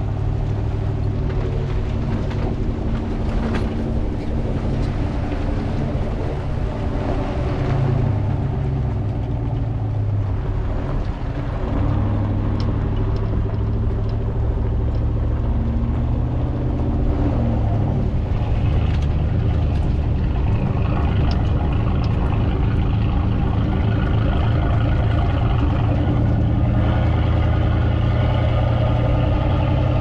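Pickup truck driving on a gravel road: steady engine hum with road noise from the tyres. The engine pitch shifts up and down a few times.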